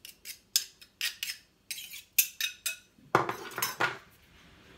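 Table knife scraping and tapping crushed garlic off a metal garlic press: a quick run of sharp metallic clicks and scrapes, then a louder, fuller clatter a little after three seconds in.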